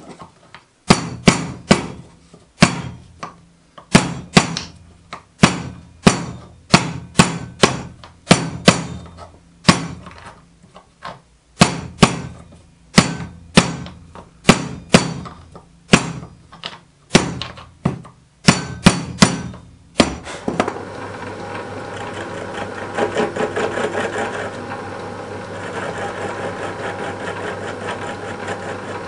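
Soft-faced mallet striking a copper boiler end plate on a wooden former held in a vise, flanging it: about two dozen sharp blows at an uneven pace. About twenty seconds in, a metalworking lathe takes over, running steadily as the part is turned clean.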